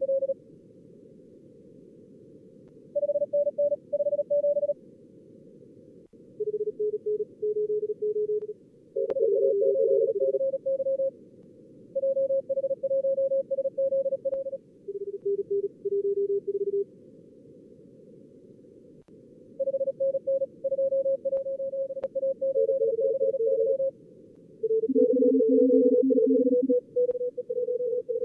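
Morse code (CW) tones from a simulated two-radio contest, with the operator's transmit sidetone and the callers' replies, sent fast in short groups over steady receiver hiss. Two main pitches, one higher and one lower, alternate as the two radios take turns; a third, lower tone joins briefly near the end.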